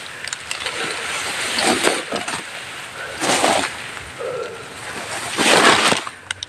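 Fern fronds and leafy undergrowth rustling and swishing as someone forces through dense brush, with three louder swishes.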